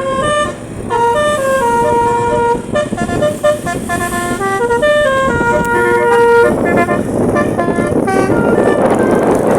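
Bus basuri musical horn ('telolet') playing a melody of quick stepping notes, some short and some held. About six and a half seconds in, the long notes stop and a louder rushing road noise takes over, with a few short horn notes still sounding through it.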